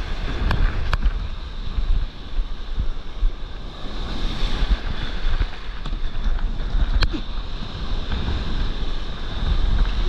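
Whitewater surf rushing and washing around and over a stand-up paddleboard, with a heavy low rumble of wind buffeting the microphone. A few sharp knocks or splashes stand out, the clearest about seven seconds in.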